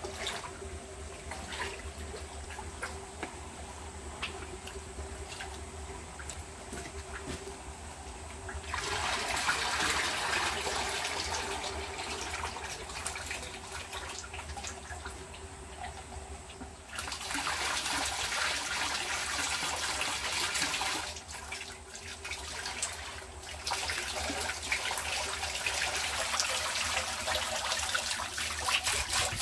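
Watery clay slurry sloshing and pouring through a sieve while soil is washed to strip out sand and grit. It trickles more quietly at first, then comes in louder rushes of pouring about nine seconds in, again around seventeen seconds, and from about twenty-four seconds on.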